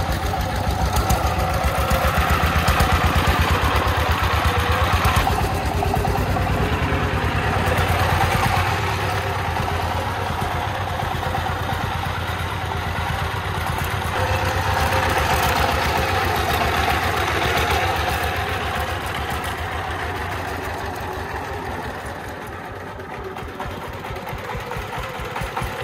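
Single-cylinder diesel engine of a three-wheeled công nông dump truck running steadily under way, a fast even chug of firing pulses. It dips briefly and then grows louder again near the end as the engine comes close.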